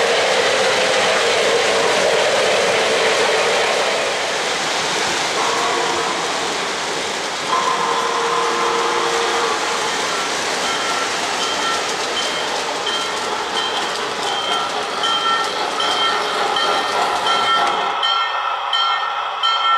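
O-gauge model trains running on three-rail track, wheels rumbling and clattering over the rails. Partway through, a held whistle sounds. After that a tone rings over and over at an even pace, like a locomotive bell, while the rumble fades away near the end.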